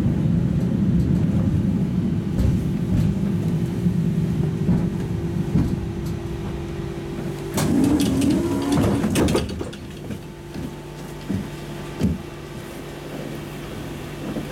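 Tatra T3 tram running, then drawing to a stop about eight seconds in with a short wavering tone and clatter. After that the standing tram gives a quieter steady hum.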